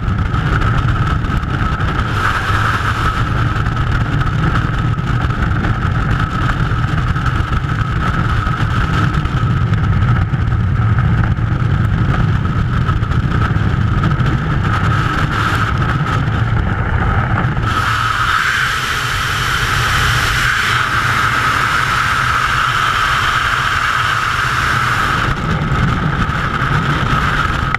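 Freefall wind rushing past a skydiver's camera: loud, steady air noise buffeting the microphone, with a deep rumble that eases and a brighter hiss that rises about eighteen seconds in.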